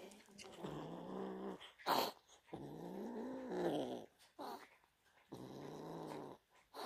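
Devon Rex kitten growling over raw meat: three drawn-out growls, each more than a second long, rising and falling in pitch, with a short sharp burst of noise about two seconds in.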